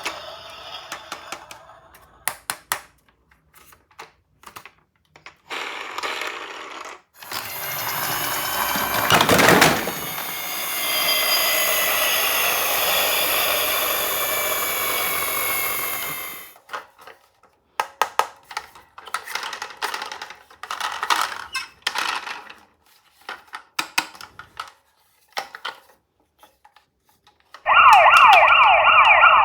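Toy ambulance minicars being handled, with small plastic clicks and clatters. A toy's motor whirs for about nine seconds in the middle, its pitch sinking a little as it winds down. Near the end a toy's electronic ambulance siren starts up loudly, with fast repeating sweeps in pitch.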